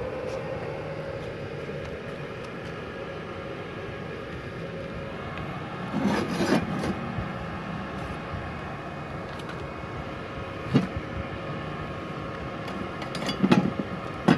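Multipro MIG-MMA/TIG 160 A-SC inverter welder just switched on: its cooling fan spins up in a rising hum, then runs steadily. A few short knocks and handling clatters come about halfway through and near the end.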